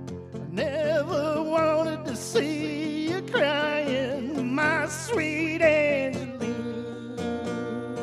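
Live solo performance: strummed acoustic guitar with a man singing. His voice holds a long, wavering line from about half a second in until about 6 s, and the guitar carries on alone at the end.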